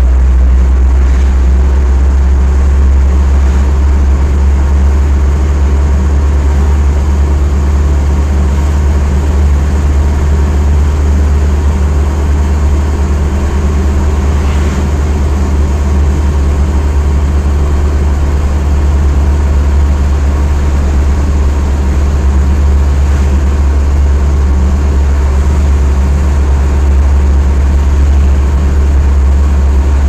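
Steady engine and road drone heard from inside a moving vehicle's cabin, a deep even rumble that holds level throughout.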